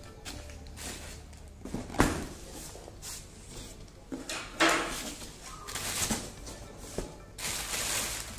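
A cardboard shipping carton being opened by hand: a sharp knock about two seconds in, then several more knocks and bouts of cardboard flaps rustling and scraping.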